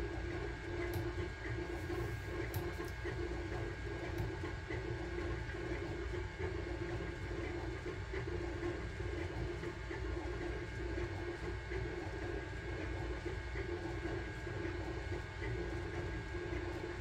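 Sunlu Terminator 3 3D printer running mid-print: a steady fan hum with the stepper motors' whirring wavering as the print head moves, and a few faint ticks.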